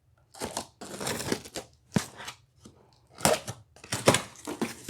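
Packaging of a flat-packed IKEA RÅSKOG utility cart being opened and handled: irregular bouts of rustling and crinkling, with a sharp click about two seconds in.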